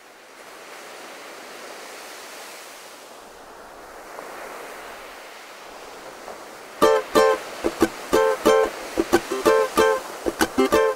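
A soft, even rushing noise like surf, then background music begins about seven seconds in: quick plucked-string notes in a lively rhythm.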